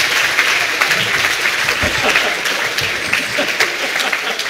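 Audience applauding, many hands clapping at once, gradually dying down.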